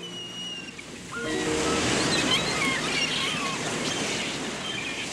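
Waves washing onto a beach with wind, swelling about a second in, with short high chirps over the surf.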